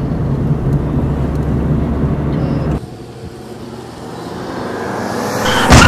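Car interior driving noise, a steady low rumble of engine and road. It cuts off abruptly about halfway, then a quieter noise grows steadily louder, and a sudden loud bang hits near the end.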